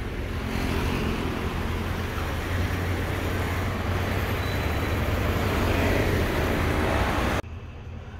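Roadside traffic noise with a steady low engine rumble. Near the end it cuts off suddenly to a much quieter room tone.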